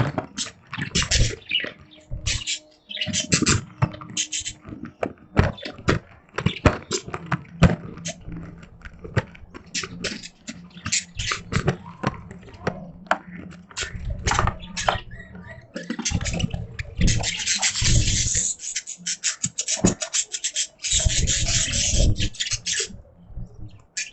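Budgies chattering in a cage: a fast run of scratchy clicks and short chirps, thickening into two longer bouts of busy warbling in the second half.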